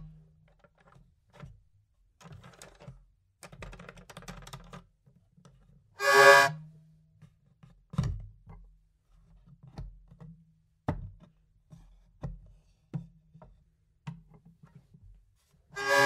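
Hurdy-gurdy played sparsely: faint scraping strokes, a short burst of a droning bowed note about six seconds in, then a series of soft knocks roughly a second apart.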